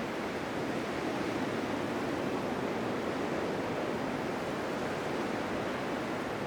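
Blizzard wind blowing as a steady, even rush, with no gusts standing out.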